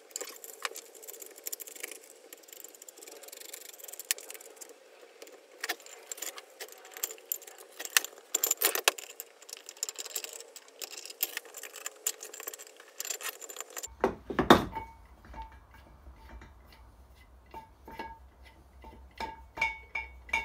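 Metal clinking and rattling as brass tap fittings are worked loose from a ceramic hand basin with grips, in scattered sharp clicks. A louder knock comes about fourteen seconds in.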